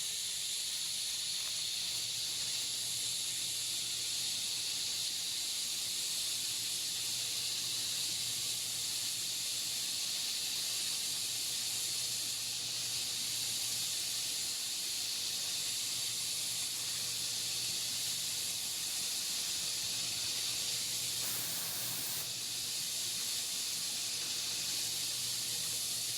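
TIG welding arc burning steadily as the torch is walked with a large gas-diffuser cup, a continuous hiss over a faint hum.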